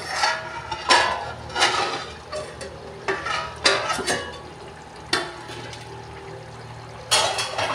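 A stainless steel plate used as a lid clinking and scraping against the rim of a pan as it is lifted off, several sharp metallic clanks with short ringing, over the soft sizzle of the eggplant-and-potato curry simmering beneath.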